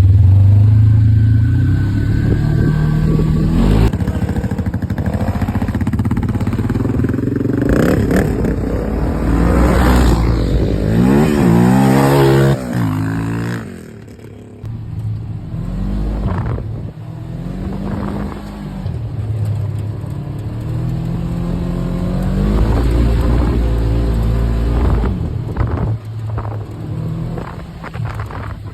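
ATV engine revving hard, its pitch climbing and falling over and over. The revs climb steeply about ten to twelve seconds in and cut off sharply, then come back as a string of shorter rising revs.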